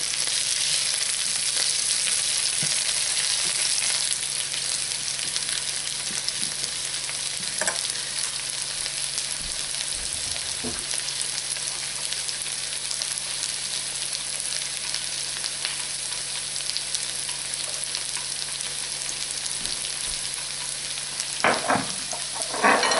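Chicken pieces coated in egg and parmesan, with asparagus spears, frying in oil in a pan, a steady sizzle. A couple of short knocks come near the end.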